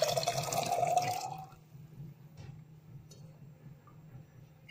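Soaked chickpeas and their water poured into a pressure cooker of thick masala, a wet splashing pour that lasts about a second and a half and then stops.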